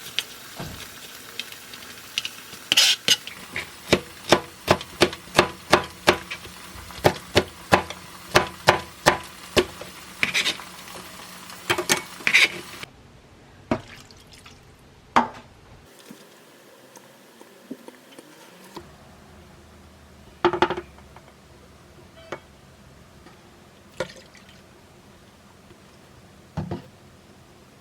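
Kitchen utensils knocking during food prep: a quick, fairly regular run of knocks for about twelve seconds, then a few scattered knocks and clinks.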